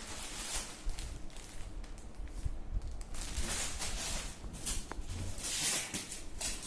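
Rustling and bumping handling noise in bursts, as the packaging and accessories are moved about.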